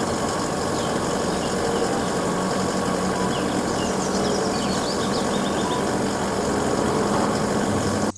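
A truck engine running steadily, a dense, even rumble that cuts off abruptly at the end.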